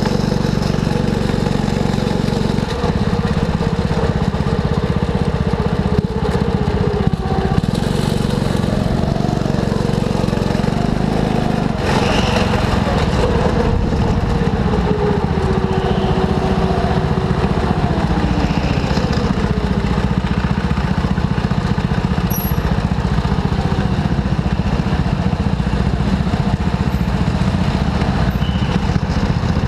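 Go-kart engine running under a steady low rumble, its pitch rising and falling again and again as the throttle opens and closes.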